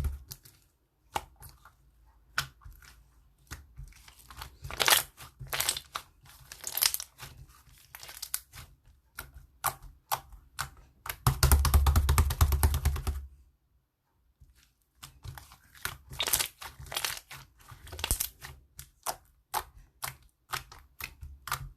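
White and yellow 'fried egg' slime being squished, poked and stretched by hand, giving runs of sharp clicks and pops. A few denser crackling stretches come partway through, with a short pause in between.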